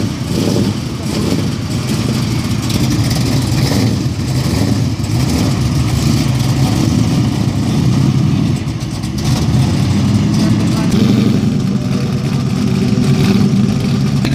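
V8 engines of classic Chevrolets running at low speed: a C3 Corvette pulling away slowly, then an El Camino SS idling close by, its rumble strongest near the end. People talk in the background.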